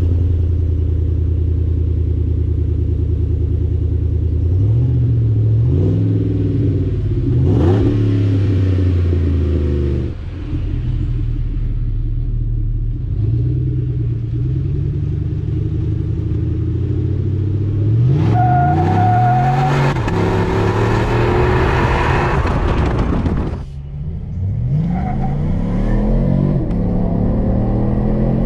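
Chevrolet Colorado's swapped V8 through a hand-built titanium exhaust with a small bullet muffler, the truck accelerating hard. The note climbs, dips briefly about ten seconds in and again about twenty-four seconds in as the gears change, then climbs again toward 5,000 rpm.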